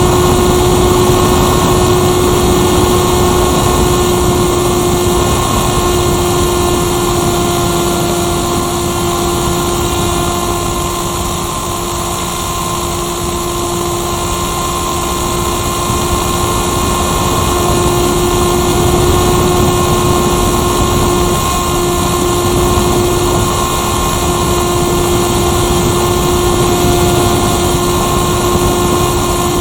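Motor and propeller of a Firstar 2000 RC motor glider running at a steady pitch, heard from the onboard camera with air rushing past, the sound easing a little in the middle.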